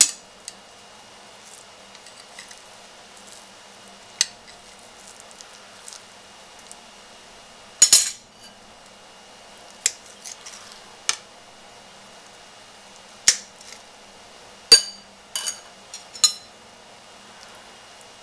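A metal knife and spoon clinking and scraping against a plate while a set gelatin dessert is cut and scooped. There are about a dozen scattered sharp clicks, the loudest about eight seconds in and again near fifteen seconds.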